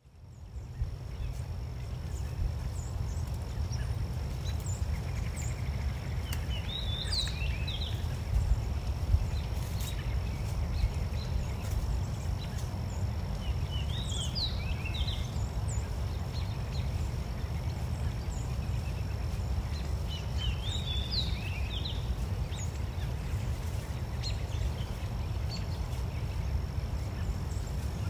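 Outdoor nature ambience: a steady low rumble with a thin, steady high tone, and a small bird chirping short bursts of high notes about every six or seven seconds.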